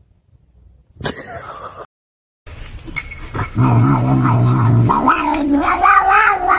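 A cat yowling: one long, drawn-out wailing call that rises in pitch near the end, preceded by a short burst of noise about a second in.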